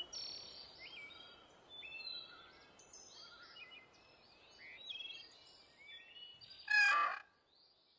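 Faint birdsong ambience of scattered short chirps, with a louder animal call lasting about half a second near the end.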